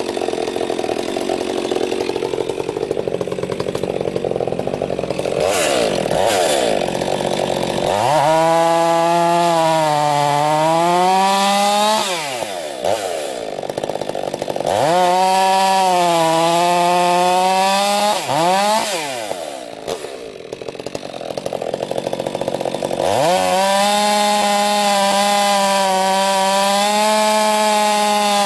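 Stihl MS 462 two-stroke chainsaw with a Bark Box muffler, running rough and low at first, then opened up to full throttle three times while cutting a log. In the first two runs the pitch sags and recovers under load before the engine falls back to idle; the last run holds steady at high revs.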